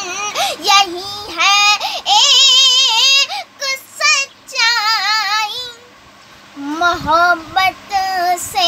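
A woman singing an Urdu ghazal, drawing out long melismatic phrases with strong vibrato, with no instrument heard. The phrases break off briefly several times, with a longer breath about six seconds in.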